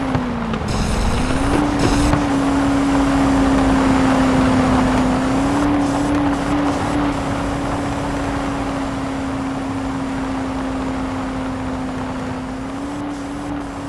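Mahindra Thar's engine running at a near-steady pitch over a constant noisy rush, the pitch dipping briefly and recovering about a second in, then rising slightly twice, around the middle and near the end.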